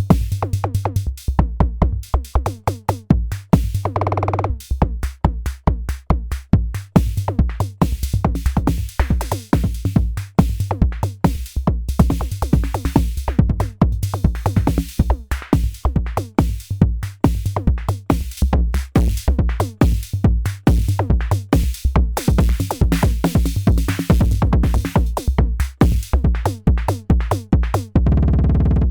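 Arturia DrumBrute Impact analog drum machine playing a programmed beat, with a steady low kick and stretches of fast repeated hits from the roller being held down and released on single instruments. A brief pitched sweep comes about four seconds in.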